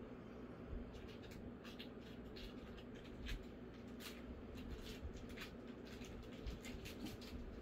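Two 8-week-old Labrador puppies play-wrestling and mouthing a plush duck toy on a blanket: faint, irregular scratching, rustling and small clicks from paws, claws and teeth, over a steady low hum.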